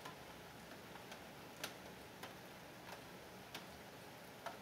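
Raindrops dripping onto a hard surface: single sharp ticks at an uneven pace, roughly one every half second to a second, over a faint steady hiss.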